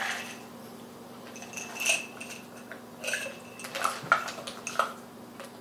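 Several light clinks and rattles from a small glass jar of chopped candied pecans being shaken out over pastry, spread over a few seconds.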